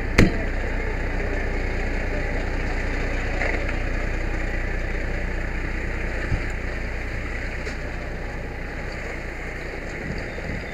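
Fire engine driving, heard from inside the crew cab: a steady engine and road rumble, with a sharp knock just after the start and a smaller one about six seconds in. The rumble eases down slightly near the end.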